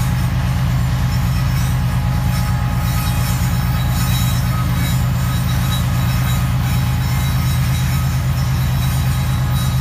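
GE diesel locomotives working as distributed power on a heavy loaded coal train, running at full throttle with a loud, steady, throbbing engine drone as they shove the train slowly up a grade. Faint wheel grinding rides above it: driving wheels spinning on the snowy rail.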